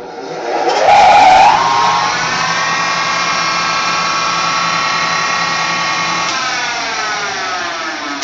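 Harbor Freight 1.5 horsepower mill-drill's motor and spindle switched on at its fastest speed: a whine that rises in pitch as it spins up over about a second and a half, then runs steadily. About six seconds in the pitch starts falling as it winds down.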